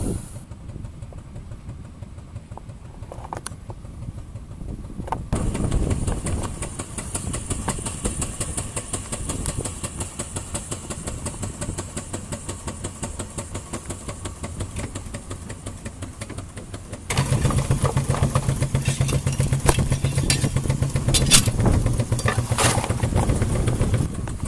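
Small steam launch engine running with a fast, even beat. About two-thirds of the way in it gets clearly louder, with a steady low hum added.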